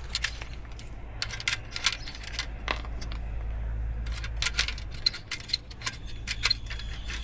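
Metal tools and parts clinking and clicking as they are handled: irregular sharp taps, some with a short ring, over a low steady hum.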